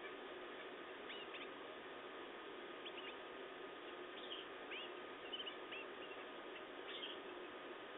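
Canaries giving short, high, squeaky chirps in small clusters every second or two, over a steady hiss.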